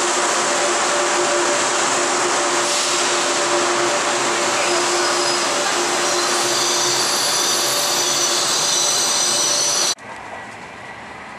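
Frecciarossa high-speed electric train moving slowly along a station platform: a loud, steady rumble and hiss with a steady hum and several high-pitched whines. About ten seconds in this cuts off and gives way to the quieter, steady rush of the train running at speed, heard from inside the carriage.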